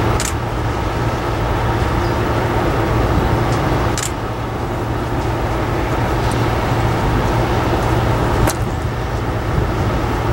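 Diesel locomotives of a freight train approaching at low speed: a steady low engine drone over a broad rumble, with a few short sharp clicks about four seconds apart.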